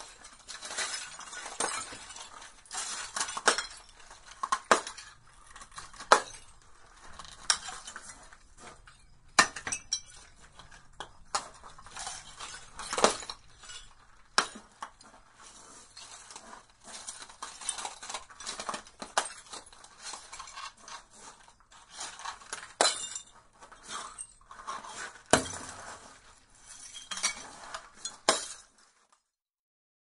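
Broken glass being ground and shuffled, with irregular clinks and crunches of shards against each other, some sharper and louder than the rest. The clinking stops near the end.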